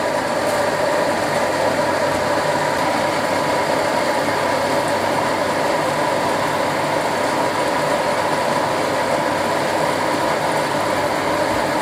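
A steady, even rushing noise with no distinct events, heard over a pot of broth boiling on the stove.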